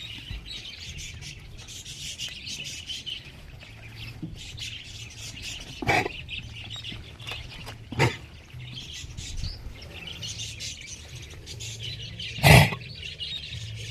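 Many small birds chirping continuously, a dense chorus of quick high chirps. Three short, louder sounds cut in, about six and eight seconds in and, loudest, near the end.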